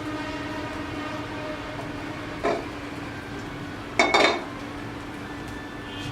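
A metal utensil clatters against a cooking pot twice, briefly about two and a half seconds in and more loudly around four seconds in, over a steady drone.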